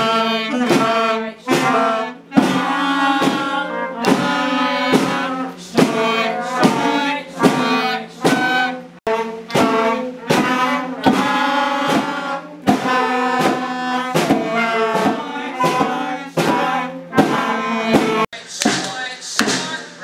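A student wind band playing a piece together: clarinets, flutes, trumpets and horn, in a rhythmic melody over a held low note.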